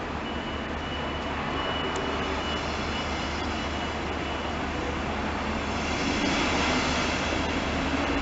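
Double-deck push-pull S-Bahn train rolling along the platform and past, its running noise growing louder toward the end. A thin, steady high tone sounds over it for the first few seconds.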